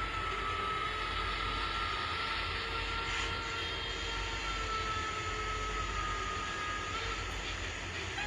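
Minitrix BR18 N-scale model steam locomotive running along its track: a small electric motor whine, slowly falling in pitch, over a steady rolling rattle of wheels on rail.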